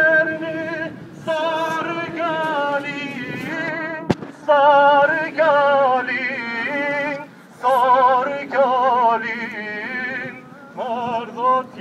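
A man singing a slow folk melody solo, without instruments, in long ornamented phrases with a wide, wavering vibrato and short breaths between them. A single sharp click cuts in about four seconds in.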